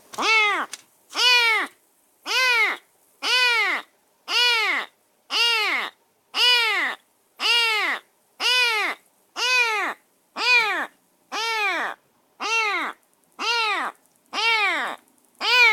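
Rescued semi-wild kitten meowing over and over in a cage, about once a second, each meow rising and then falling in pitch.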